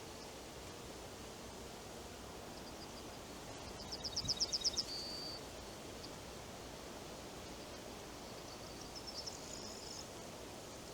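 Steady rustle of wind through forest trees and leaves, with a small songbird singing twice: a quick run of about eight high notes ending in a short trill about four seconds in, and a fainter repeat near the end.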